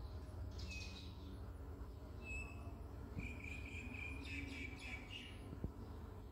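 Faint animal chirps in the background: a few short chirps, one longer held call about three seconds in, then a quick cluster of chirps, over a low steady rumble. A single sharp tap near the end.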